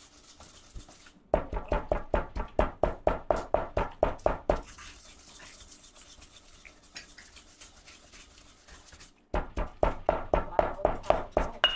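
Stone pestle pounding dried chilies and whole spices in a stone mortar to make curry paste: quick, regular thuds, about four a second, starting about a second in. A quieter stretch follows, and the pounding picks up again near the end.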